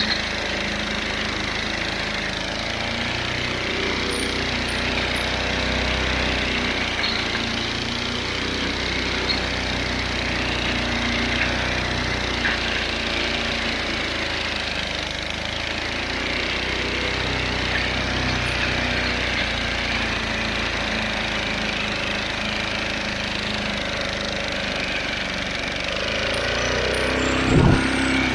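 Briggs & Stratton 125cc single-cylinder lawnmower engine running flat out, with a rough, rattling knock as it is overheated with the throttle tied open and no fan shroud. Near the end there is one brief louder low thump.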